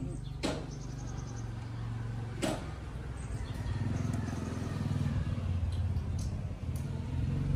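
An engine running steadily with an even, low pulse, and two sharp clicks about half a second and two and a half seconds in.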